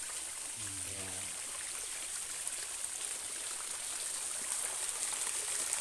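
Small waterfall running steadily into a blackwater pool, its flow low for lack of rainfall.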